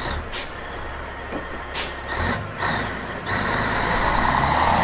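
Heavy diesel truck running with a low rumble, with two short hisses of air brakes being released. It grows louder over the last second and a half.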